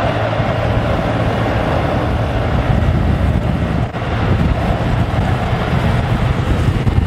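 Steady rush of wind over the microphone at high speed, with the roll of longboard urethane wheels on asphalt underneath; it dips briefly about four seconds in.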